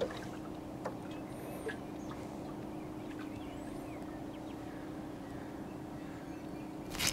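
Quiet open-water ambience: a faint steady low hum, with a few faint high bird chirps and a light click or two.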